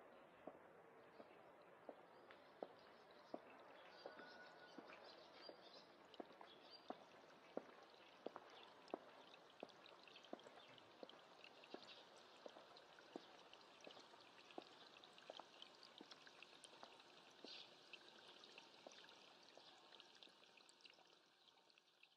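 Faint trickling water with a steady patter of drips, fading out at the end.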